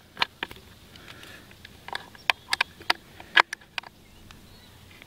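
Handling noise as a metal dibble spike is twisted onto its screw in a plastic dibbler wheel: irregular sharp clicks and taps, most of them bunched together in the middle.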